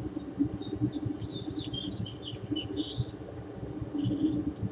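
Small birds chirping and twittering in quick short phrases, over a steady low rumble.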